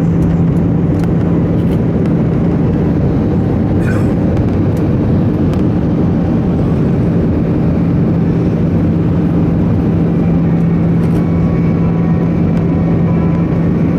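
Steady cabin noise inside an Airbus A319 in flight: a constant rush of airflow with the low, even hum of its CFM56 turbofan engines. A few faint ticks fall within it, and some faint higher tones join in after about ten seconds.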